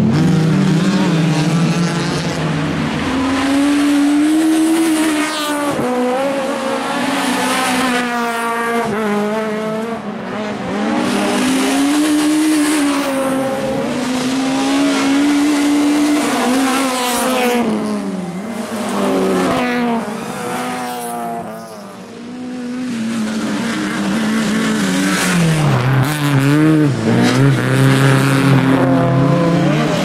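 Rallycross cars' engines revving hard, their pitch repeatedly climbing and falling as they change gear and lift off through the corners, with several cars passing in turn. The sound dips briefly about two-thirds of the way through, then builds again.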